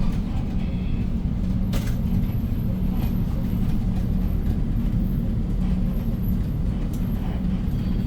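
Cabin sound of a 2015 Hyundai New Super Aerocity city bus under way: its CNG engine and the road make a steady low drone, with a short sharp click about two seconds in.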